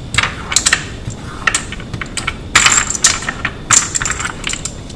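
Loose brass rifle cartridges clinking against each other and clicking on wood as they are picked up by hand and loaded into an AR-15 magazine: irregular sharp clicks with a bright metallic ring.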